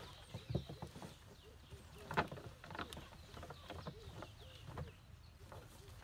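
Fresh weeds, grass and leaves rustling and crackling as hands pack them down into a plastic compost bin, with a sharper crackle about two seconds in.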